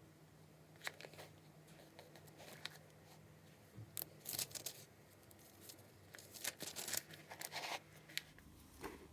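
Paper rustling in short crisp bursts, as of book pages being handled and turned: one brief rustle about a second in, then two busier stretches in the middle and later part.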